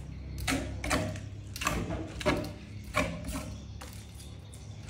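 A series of irregular knocks and short scrapes, about five of them, the sharpest just past the middle. A low hum fades out in the first half-second.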